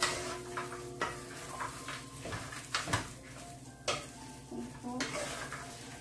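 Wooden spatula stirring a frying pan of dried anchovies, nuts and green chili peppers, with irregular knocks and scrapes against the pan.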